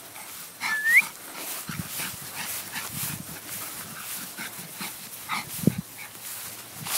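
Cavalier King Charles Spaniel puppy scampering on grass, giving one short high whine that dips and rises about a second in. A dull thump comes near the end.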